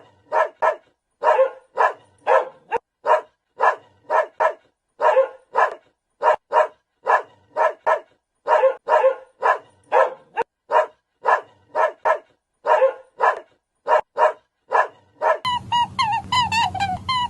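A dog barking over and over, short sharp barks often in pairs with silence between. Near the end the barking stops and a steady low hum with a warbling, wavering call begins.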